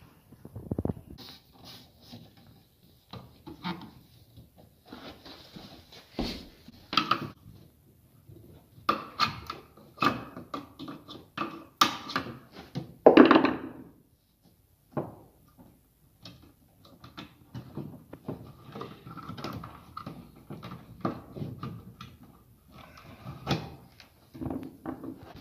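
Irregular knocks and thuds of tools and hands working against wooden wall studs while electrical gang boxes are mounted, with one louder thud about thirteen seconds in.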